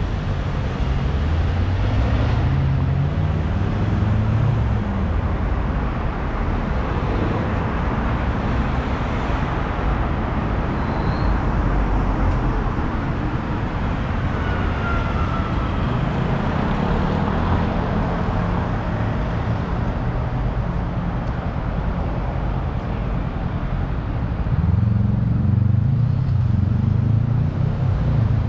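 Street traffic: cars running past with engine rumble and tyre noise, steady throughout and a little louder near the end.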